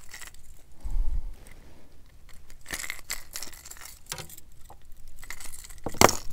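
Light clicks and rattles of fishing tackle as a freshly caught speckled trout is landed and handled on a boat, with a low rumble about a second in and a sharp knock about six seconds in.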